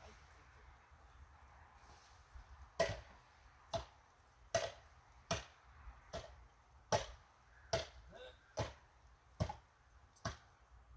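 A run of about ten sharp knocks, roughly one a second, starting about three seconds in.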